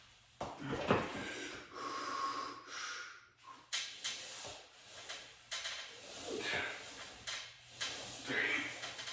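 A man breathing hard, with forceful exhales, through repetitions of wide-grip lat pulldowns, with a few sudden knocks from the pulldown machine between breaths.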